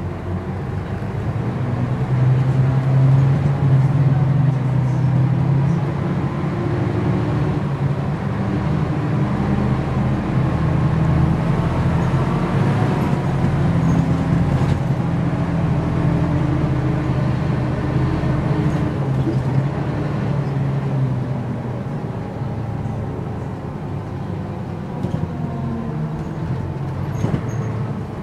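Mercedes-Benz O405 N² city bus's diesel engine running with a steady low drone, its pitch wavering up and down a little around the middle.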